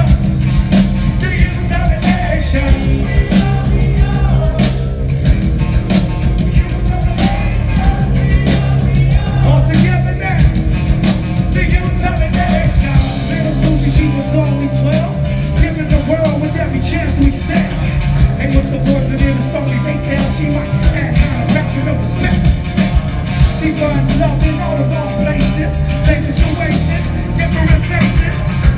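Live rock band playing at full volume: drums, electric guitars and bass, with a lead singer on vocals.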